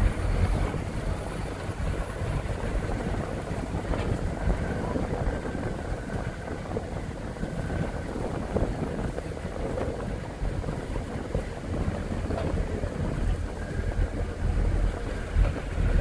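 Wind buffeting the microphone over the steady rumble of an open-top jeep driving along.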